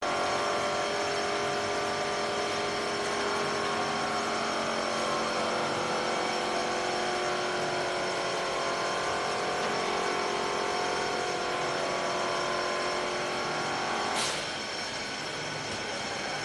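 Sun shade net yarn extrusion line running: a steady machine hum with several steady whining tones from its motors and drives. About 14 seconds in comes a short hiss, and most of the whine drops away after it.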